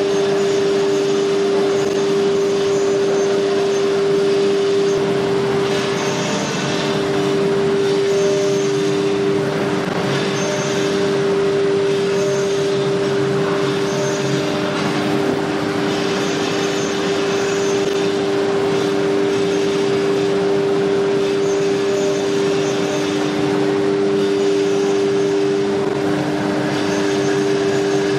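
ATC nesting CNC router running its spindle at a steady whine with two close pitches while it routes grooves in an MDF sheet. A hissing cutting noise swells and fades about every two seconds.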